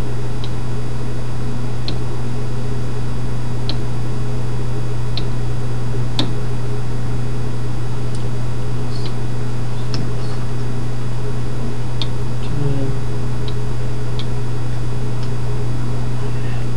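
Steady low electrical hum in the recording, with faint scattered clicks, about one every second or two, of a stylus tapping on a tablet PC screen.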